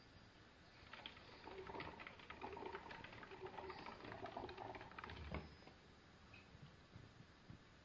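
Faint, rapid clicking and rustling from a pet degu, starting about a second in and stopping about five and a half seconds in.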